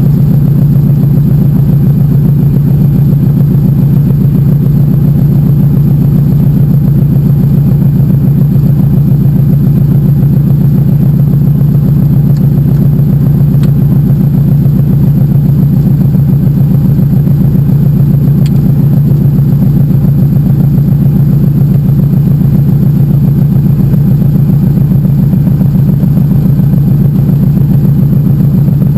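De Havilland Canada DHC-2 Beaver floatplane's nine-cylinder Pratt & Whitney R-985 radial engine running steadily, heard from inside the cockpit while the seaplane taxis on the water. The pitch and level hold even throughout, with no run-up to takeoff power.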